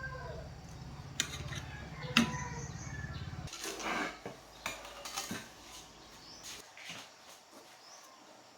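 Scattered light metallic clinks and knocks of tools and parts being handled, over a low hum that drops away about three and a half seconds in.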